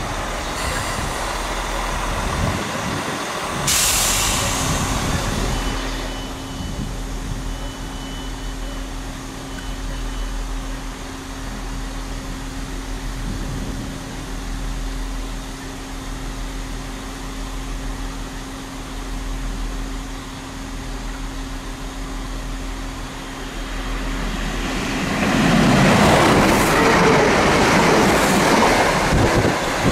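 Great Western Railway train running through the station: a steady engine hum, then the train rushes past close by for the last few seconds, the loudest part. A short burst of hiss comes about four seconds in.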